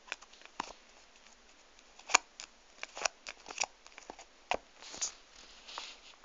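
Irregular light clicks, taps and short paper rustles as a cat's paw bats at pens on a sheet of paper, the sharpest click about two seconds in.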